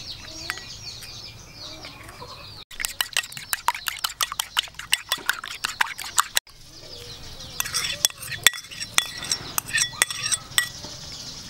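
A metal spoon beating a raw egg in a small ceramic bowl: rapid clinking strokes for a few seconds, starting about three seconds in. Birds call in the background before and after, with a few more clinks of the spoon against the bowl in the second half.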